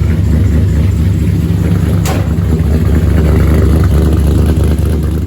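Truck engine running steadily in gear, spinning the rear axles to warm the rear differential oil before it is drained. A single sharp click about two seconds in.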